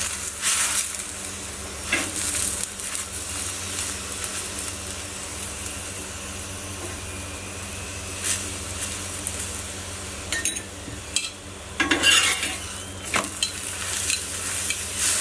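Aloo paratha frying in ghee on a hot tawa, a steady sizzle, with a steel spoon spreading the ghee and scraping across the pan in scattered strokes. Near the end a flat steel spatula scrapes over the paratha.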